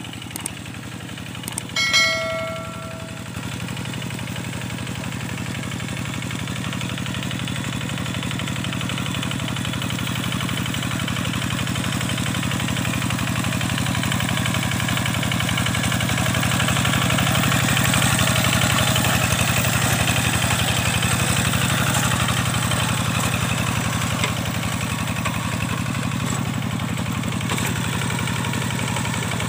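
Kubota diesel tractor engine running steadily under load while working a waterlogged field, growing louder toward the middle and easing slightly near the end. A short ringing tone sounds about two seconds in.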